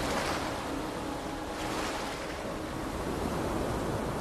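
Small sea waves breaking and washing up a pebble shore, the surf swelling and easing.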